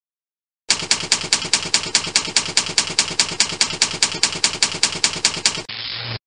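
Sound effect of typewriter keys clacking in a fast, even run, about five strikes a second. Near the end it gives way to a short steady rasp that cuts off abruptly.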